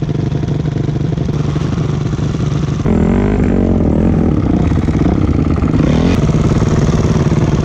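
Dirt bike engine running steadily, then from about three seconds in revved up and down repeatedly under load while the bike churns through deep snow, before settling again near the end.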